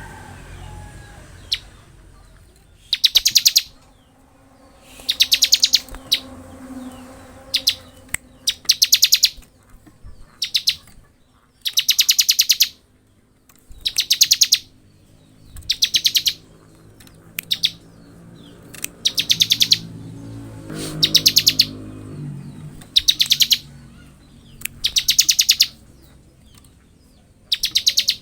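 Bar-winged prinia (ciblek) singing its rapid buzzing 'ngebren' trill: short, high rattling phrases repeated every second or two.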